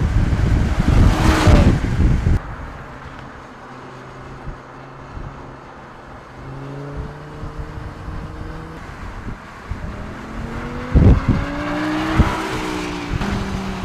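Audi R8 V10 plus's 5.2-litre V10 engine running hard on a racetrack. It is loud for the first two seconds, then heard further off with its pitch climbing and falling between gears. About eleven seconds in the car passes close, loud, with a rising then falling pitch.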